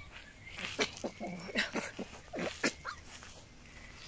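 Fennec fox giving a quick run of short, sharp calls, about seven in two seconds: one of its grumpy, annoyed vocalisations.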